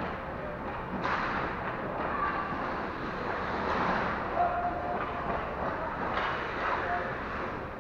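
Ice hockey rink noise during play: skates scraping and sticks on the ice in a steady rush, surging about a second in and again around six seconds in, with brief distant shouts echoing in the arena.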